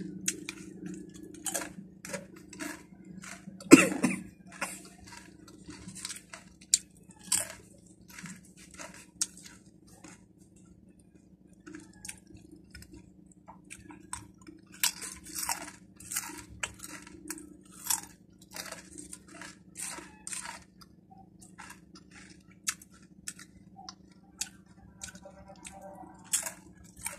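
Close-up crunching and chewing of crispy Red Chili snack chips, with one loud crunching bite about four seconds in and steady crackles of chewing after it.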